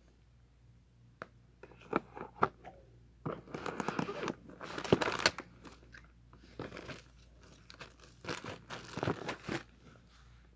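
Crinkling and rustling of phone packaging being handled, with a few sharp clicks at first, then longer stretches of rustling, loudest around the middle and again near the end.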